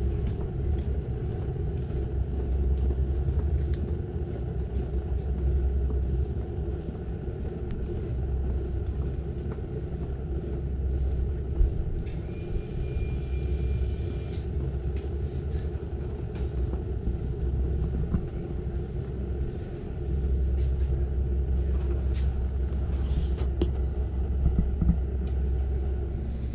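Urban street ambience dominated by a steady low rumble of engines and traffic. About twelve seconds in, a thin high-pitched tone sounds for about two seconds.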